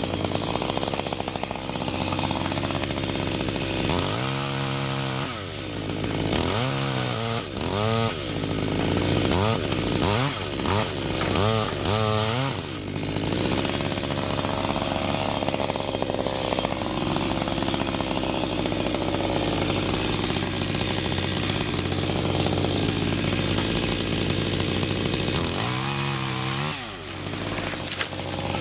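Chainsaw running while felling acacia trees, its pitch sweeping up and down several times in the first half and again near the end as the throttle is opened and eased, with a steadier stretch in between.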